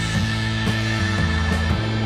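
Background music with guitar, playing sustained chords that change every second or so.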